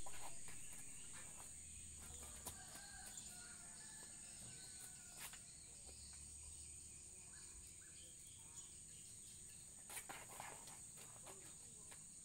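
Faint outdoor ambience: a steady high insect drone, with a few faint chirps and soft clicks.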